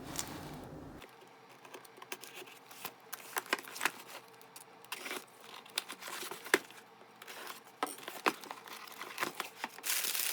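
A package being opened by hand: wrapping crinkling and tearing in many short, irregular rustles and clicks.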